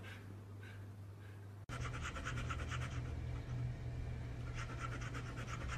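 Golden retriever panting fast and evenly, several breaths a second, starting about two seconds in, with a short pause partway through.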